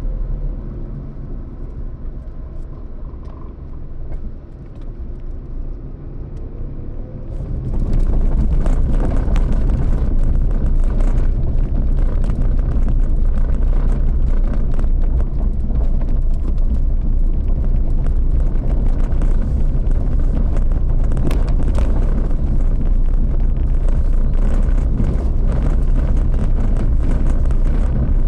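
A road vehicle driving with a steady low rumble. About seven seconds in, a loud rush of wind and road noise sets in and stays, with crackling against the microphone.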